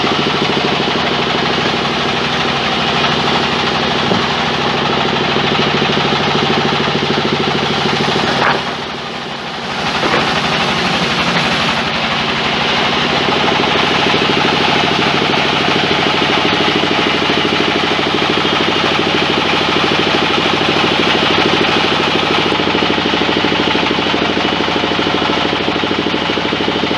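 Large sawmill band saw running steadily while a long log is pushed through it, a loud, even machine hum. The sound drops briefly about eight and a half seconds in, then comes back to the same level.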